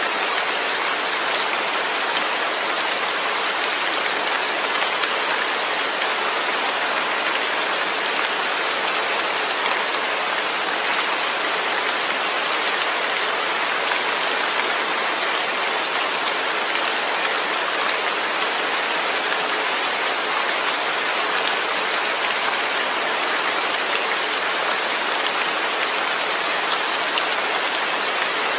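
Steady rain falling, an even hiss without thunder.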